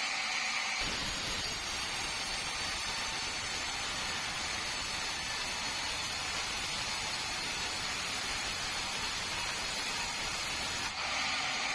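Sawmill saw running and cutting through a bengkirai hardwood log, a steady noisy hiss and whine. About a second in the sound grows fuller and deeper, and near the end it thins again.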